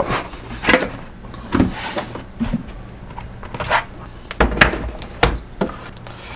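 A cardboard laptop shipping box being handled: its flaps and a cardboard insert with a plastic film sheet pulled out and laid on the bench, giving a string of irregular scrapes and knocks, with the heaviest thumps a little past the middle.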